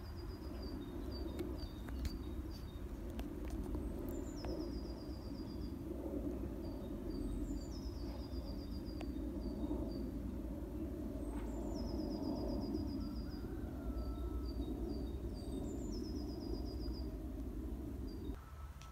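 Steady, dense buzzing hum of many sand bees flying low over their nesting ground, cutting off abruptly near the end. A songbird repeats a short phrase four times, a few separate high notes and then a quick falling trill.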